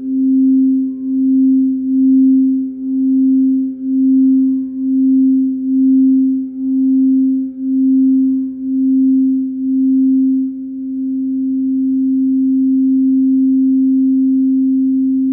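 Quartz crystal singing bowl sounding a low, steady tone that pulses about twice a second. About ten seconds in, the pulsing stops and the tone carries on smooth, swelling slowly.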